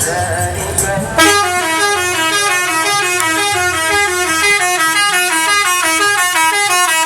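Bus 'telolet' horn, a multi-trumpet air horn, playing a fast jingle of short stepped notes. It starts about a second in and cuts off suddenly just before the end.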